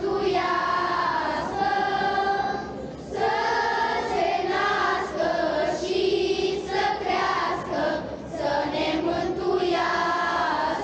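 Children's choir singing a Romanian Christmas carol (colindă), in sung phrases with short breaks between them.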